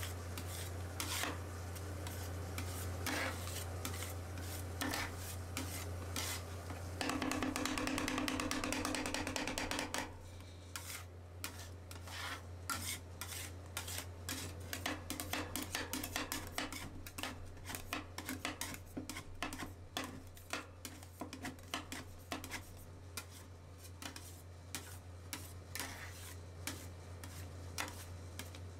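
Metal spatulas scraping and tapping on a stainless steel pan while working rolled ice cream, over a steady low hum. A louder stretch of scraping comes a few seconds in, followed by quick repeated clicks and taps.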